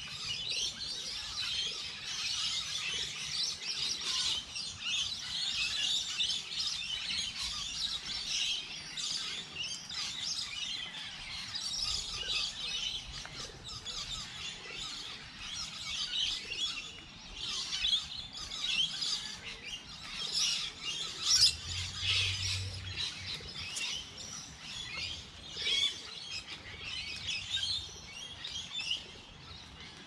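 Many birds chirping at once: a dense, continuous chorus of quick, high-pitched calls overlapping one another, with a louder spell a little over two-thirds of the way through.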